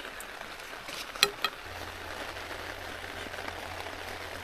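Jumbo shimeji mushrooms sizzling as they cook, with two sharp clicks about a second in. A low steady hum comes in shortly after.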